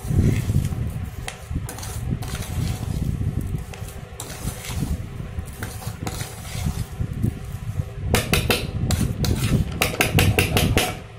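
Steel spoon stirring and scraping boiled vermicelli in a steel pot, with irregular clinks and scrapes against the pot. Near the end comes a fast run of clinks.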